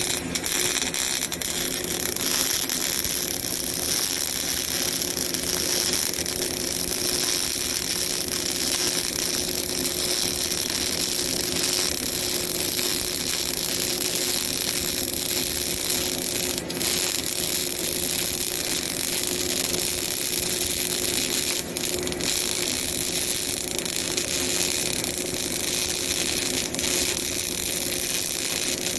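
CO2 (MIG) welding arc laying a vertical-up weave bead, a steady, unbroken crackling hiss with fine irregular pops.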